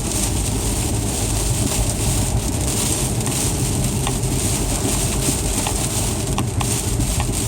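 Car interior road noise while driving on snowy, icy streets: a steady low rumble of engine and tyres, with a few faint ticks from about four seconds in.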